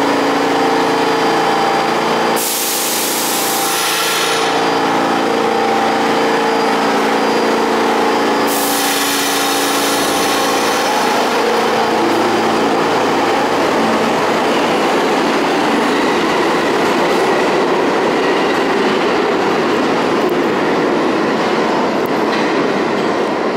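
R46 subway train departing a station: steady motor and equipment hum while it stands, two loud bursts of hiss about two and eight seconds in, then the noise of the train rolling out on the rails, continuing as it moves away.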